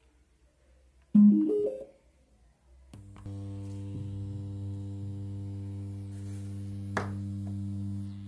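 The portable Bluetooth speaker sounds a short rising run of tones about a second in, like a power-on chime. From about three seconds it gives a steady low hum, with a click near the end. The hum is noise: the solar-panel receiver is picking up the surrounding room lights, and no message signal is being sent.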